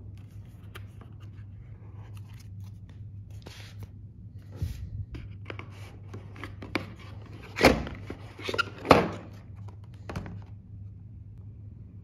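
Hands handling a cardboard box and lifting a smoke alarm out of its packing: light scrapes, rustles and taps, with two louder bumps in the second half. A faint steady low hum runs underneath.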